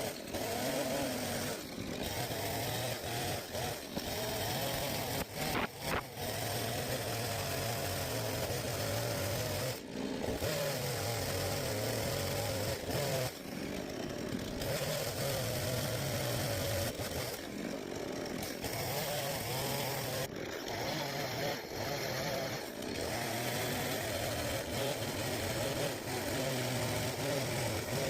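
Chainsaw running and cutting, its engine note wavering up and down as it works through the cut, with a few brief dips where it eases off.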